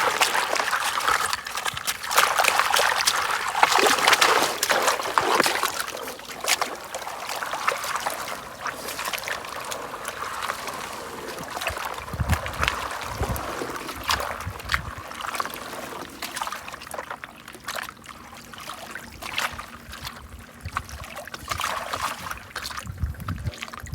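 Water sloshing and trickling as river sand is washed in a gold pan, with many small clicks of grit and gravel. It is loudest in the first few seconds. A few dull low bumps come midway and again near the end.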